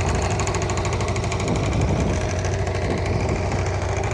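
Small outboard motor on an inflatable dinghy running steadily under way.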